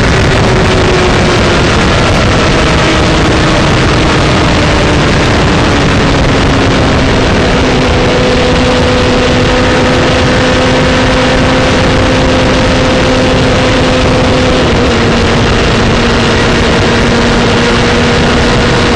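Suzuki Bandit 650 S inline-four with a TRS Coyote slip-on exhaust running at speed, heard onboard under heavy wind rush. The engine note eases down over the first several seconds, then holds steady.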